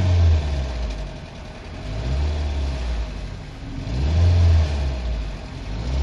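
Nissan Sentra engine, heard from inside the cabin, revved up and let fall back in swells about every two seconds while running rough with a misfire. The mechanic takes the noise for the timing chain, which he blames for the crankshaft and camshaft sensors losing sync and setting code P0300. Heavy rain on the car is heard throughout.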